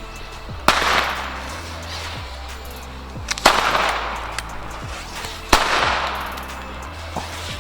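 Firecrackers from an XPlode bangers assortment going off: three loud bangs a couple of seconds apart, each trailing off in a long echo, with a smaller crack near the end. Background music with a deep bass line runs underneath.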